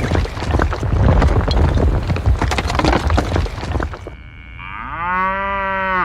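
A rapid, dense clatter of knocks and bangs, then a cow mooing once, one long call near the end.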